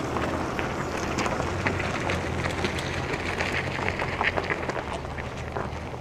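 Mercedes-Benz G350d's straight-six diesel engine running low and steady as the SUV crawls over an off-road slope, with tyres crunching and crackling over dirt and grass.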